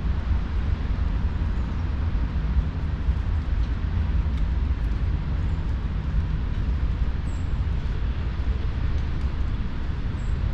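Steady low outdoor rumble throughout, with a few faint, brief, high-pitched bird chirps in the second half.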